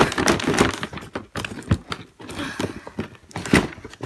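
Cardboard box handled and opened close to the microphone: an irregular run of taps and knocks with the scrape of cardboard flaps between them.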